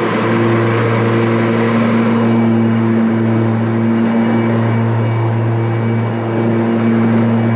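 Ryobi 80-volt battery-powered zero-turn riding mower running, its electric blade motors spinning mulching blades through fallen leaves: a steady multi-tone motor hum over a constant rush of cutting noise.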